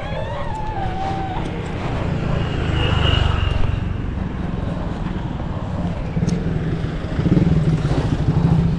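Motorbike or scooter engine running with road traffic, the engine throb growing louder about seven seconds in.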